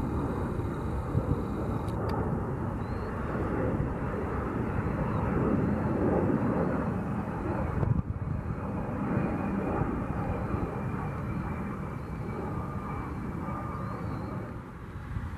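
Jet engines of a low-flying KC-135 Stratotanker passing by, a steady rushing rumble that swells around the middle and fades toward the end.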